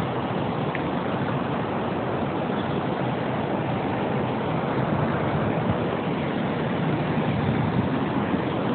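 Steady rushing noise of a car and wind heard through its open window, even throughout with no distinct sounds standing out.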